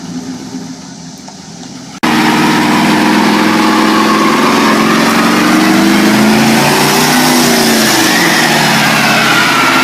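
Ford F-150's 5.0 V8 held at high revs during a burnout, with a loud hiss from the spinning rear tyres over it. About two seconds in the sound jumps suddenly from a quieter engine note to full volume. Near the end the revs dip and then climb again.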